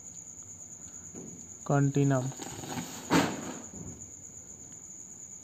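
Steady high-pitched trill of crickets throughout. A man's voice makes two short hums a little under two seconds in, and there is a brief rustle about three seconds in.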